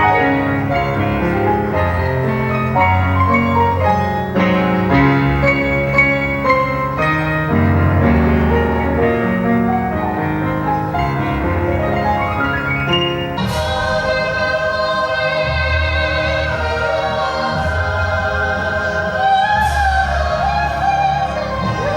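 Live band music with singing: chords over bass notes, then about halfway through a singer holds long notes with a wide vibrato.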